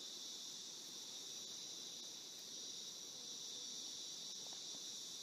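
Faint, steady chorus of insects, a high, unbroken drone.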